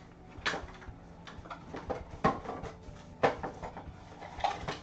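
Several sharp knocks and clatters about a second apart, the loudest near the middle, as objects are moved about while someone rummages off to one side looking for something.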